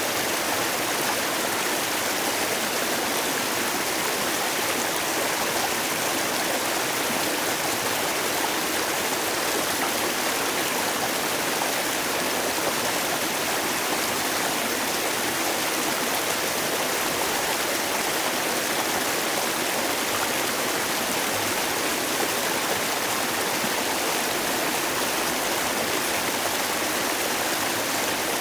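Mountain valley stream rushing steadily over rocks, a constant even rush of water.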